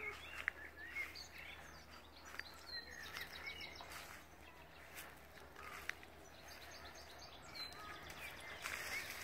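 Faint open-air ambience with birds chirping in short scattered calls throughout, and a few sharp clicks, the loudest about half a second in.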